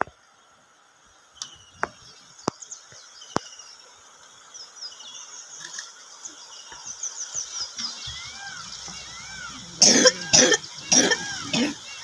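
Wild birds singing: high chirps and a repeated arching whistle call. There are a few sharp clicks in the first few seconds. Near the end come four loud, harsh cough-like bursts close to the microphone.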